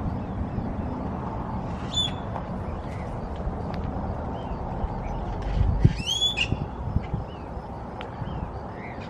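Birds squeaking and chirping in the park trees, with a louder run of squeaky calls that rise and fall about six seconds in, over a steady low rumble; a dull low thump comes just before the loud calls.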